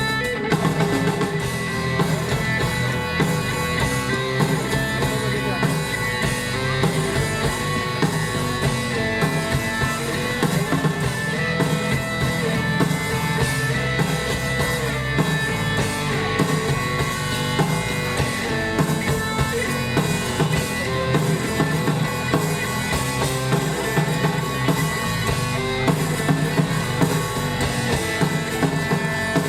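A live rock band playing, with a drum kit keeping a steady beat under guitars.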